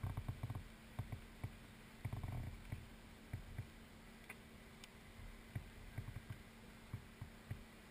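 Faint, irregular low thumps and light knocks picked up by a kart-mounted camera as the stationary kart and its seated driver shift slightly, over a faint steady hum.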